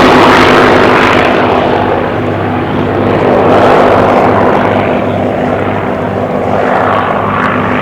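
Propeller-driven Second World War fighter with a Rolls-Royce Merlin V12 flying past, a steady engine drone that is loudest at first and eases off about two seconds in.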